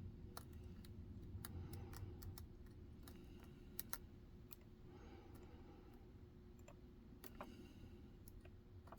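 Faint, irregular clicks and light scraping of a steel lock pick working the pin stack inside a Medeco 6-pin cylinder under tension, with two sharper clicks about four seconds in.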